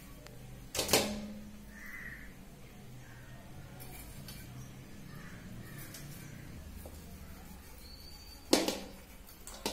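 Stainless steel bowl or plate clanking sharply twice, about a second in and again near the end, each time ringing briefly, while pork is cut into pieces and handled over the steel dishes.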